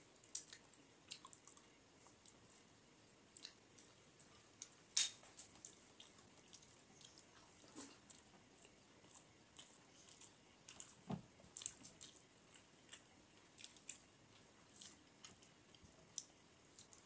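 A person eating rice and curry with their fingers, heard close up through a clip-on microphone: soft chewing and wet mouth smacks, with fingers squishing rice into gravy on a metal plate. These come as irregular small clicks, with one sharper click about five seconds in.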